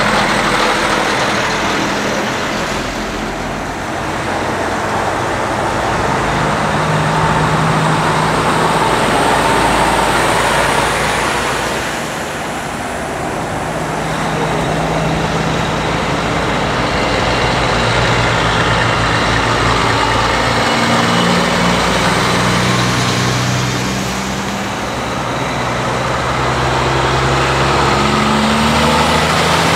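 Diesel prime movers hauling B-double race transporter trailers driving past one after another, engines pulling with tyre and road noise. The sound swells and fades several times as each truck goes by, the engine note stepping up and down in pitch.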